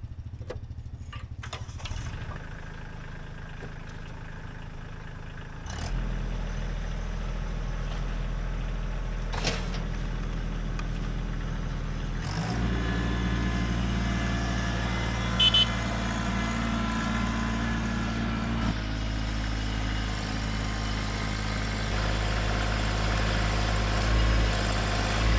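An engine running at a steady speed, its level and tone stepping up a few times, with one sharp knock about a third of the way in.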